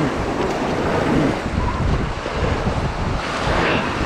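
Rushing whitewater of a river rapid, with wind buffeting the microphone.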